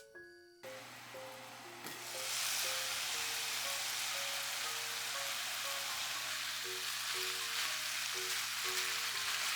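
Food sizzling in a hot frying pan. The sizzle starts faintly, swells about two seconds in, and then holds steady over light background music.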